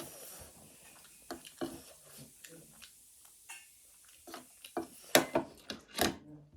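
Close-miked eating sounds of a person eating spicy ramen noodles: scattered soft clicks and chewing noises, with a few louder, sharper ones about five and six seconds in.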